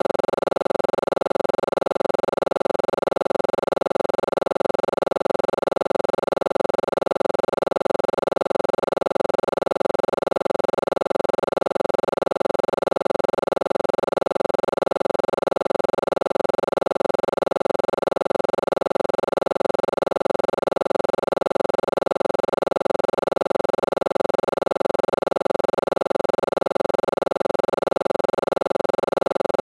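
A loud, steady drone of several held tones, strongest in the middle range, with a fast, even flutter and no change at all.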